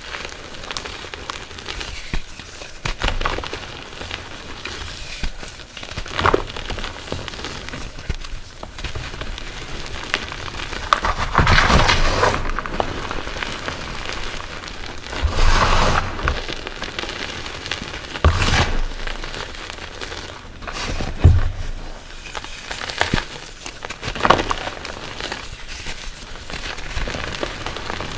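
Hands squeezing and crumbling soft reformed Chalkness Monster gym chalk, powder and chunks, in a bowl: soft crunching and crackling that comes in several louder bursts. Underneath runs a steady rain background.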